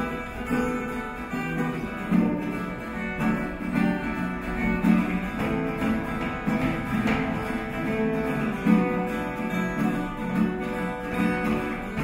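Instrumental acoustic guitar music: steady plucked and strummed chords over a repeating bass-note pattern, with no singing.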